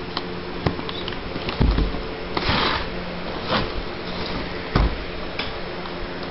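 Cardboard firework cake boxes being handled: a few knocks and thumps as the boxes are turned and set down, and a short rustle about two and a half seconds in as a fuse cover is worked loose. A faint steady hum runs underneath.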